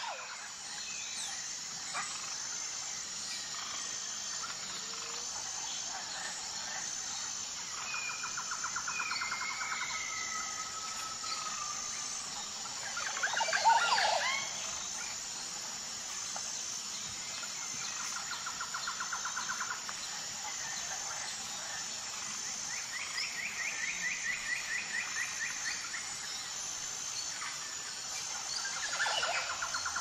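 Forest birds singing: a trill of rapid repeated notes returns about every ten seconds, with a few whistled slurs, a higher trill later on, and one louder call about halfway through, over a steady high-pitched hiss.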